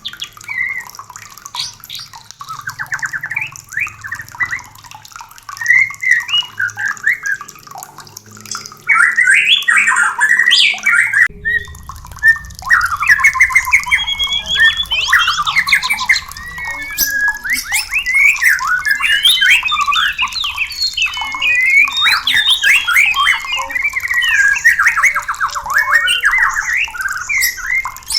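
White-rumped shamas singing and calling in quick succession: whistled phrases mixed with fast, harsh chattering rattles. The calls become louder and denser about eleven seconds in.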